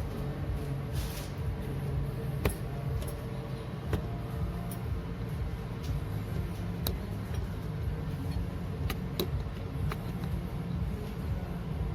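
A machine running with a steady low, pulsing hum, with a few sharp clicks scattered through it.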